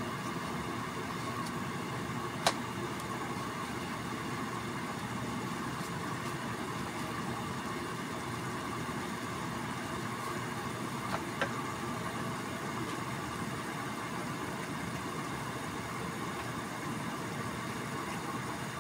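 Chicken franks simmering in a skillet of bubbling water: a steady hiss, with a sharp pop about two and a half seconds in and two smaller pops close together around eleven seconds.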